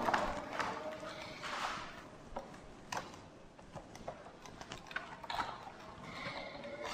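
Marker drawing being wiped off a whiteboard: faint, uneven scrubbing strokes with a few small knocks and taps against the board.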